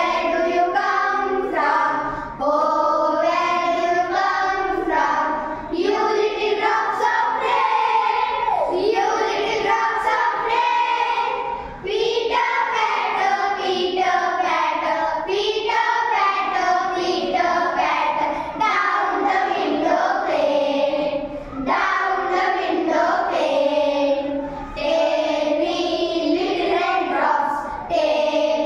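A group of children singing an English action poem in unison, in phrases separated by brief breaths.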